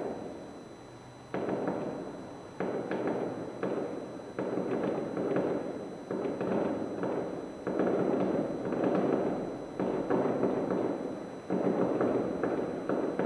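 Fireworks heard from over a kilometre away: a steady string of bangs, one every second or so, each trailing off in a long echoing rumble, with a brief lull about a second in.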